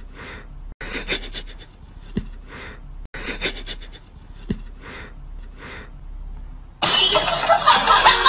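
A cat sniffing a foot in a sock: several short, soft sniffs with small clicks, in a pattern that repeats. About seven seconds in, a loud, harsh burst of noise begins.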